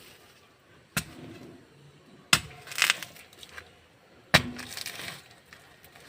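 A mammoty digging hoe striking into earth three times, each a sharp hit followed by a short rustle of loosened soil.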